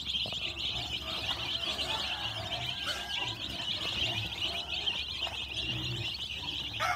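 A brood of young chicks peeping together: a continuous, high-pitched chorus of many overlapping chirps.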